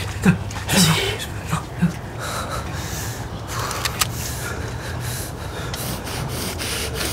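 A man's heavy, laboured breathing, with a few short gasps in the first two seconds, over a steady low hum.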